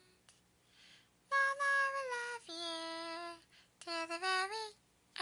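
A high, child-like character voice singing short phrases on long held notes, starting about a second in, with brief pauses between phrases.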